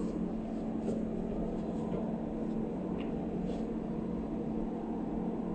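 A steady low hum over a soft hiss, like a small motor or fan running, with a faint light click about three seconds in.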